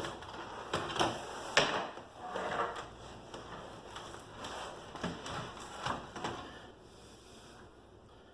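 Irregular knocks and clatter of objects being handled, a few sharp knocks in the first two seconds, the loudest about a second and a half in, and another cluster a little past the middle, then quieter.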